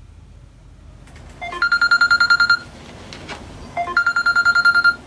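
Mobile phone ringtone signalling an incoming call: two rings about a second long, each a quick rising run of notes into a fast pulsing trill.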